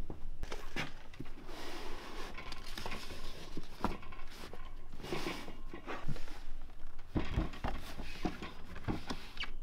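Handling noises from a small metal-framed storage cart with a wooden drawer: scattered light knocks and clicks, with patches of rustling, as things are put into it.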